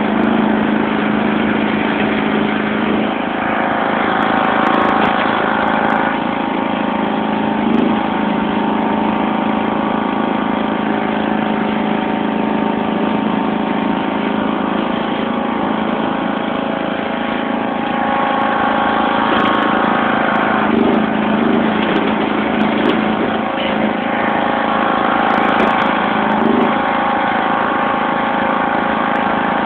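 1991 John Deere LX176 lawn tractor's 14 hp overhead-valve engine running steadily while the tractor pushes snow with a front plow blade. Its note changes a few times as the load varies.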